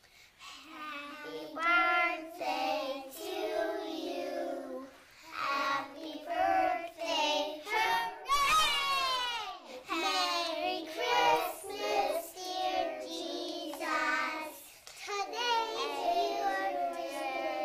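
A group of young children singing together, their voices high and a little ragged. About halfway through, a high note slides down.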